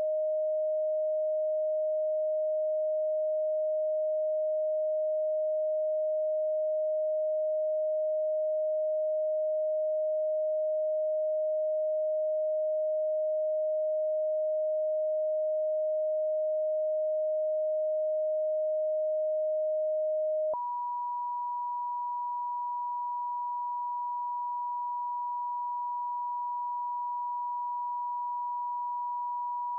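Computer-generated pure sine tones in a Rife frequency sequence. One steady mid-pitched tone switches abruptly, about twenty seconds in, to a higher, slightly quieter steady tone.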